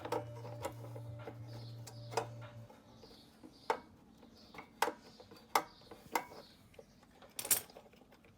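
Held, steady musical notes with a low bass tone for the first few seconds, then a run of sharp clicks and taps about once a second, the loudest near the end.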